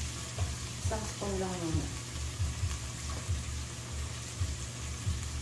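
Ground meat sizzling as it sautés in a pot, a steady frying hiss, with a short bit of voice about a second in.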